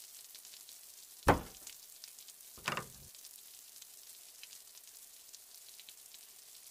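Two dull thumps about a second and a half apart, the first louder, over a faint steady hiss.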